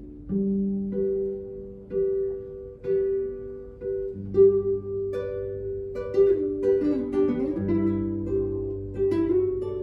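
Solo classical guitar playing a slow melody of plucked, ringing notes, with a bass line entering about four seconds in.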